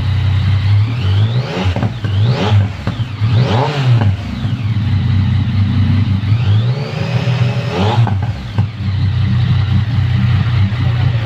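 Yamaha MT-09's three-cylinder engine idling through its exhaust, blipped up in quick revs three times in the first few seconds, then held in one longer rev that rises and falls back to idle.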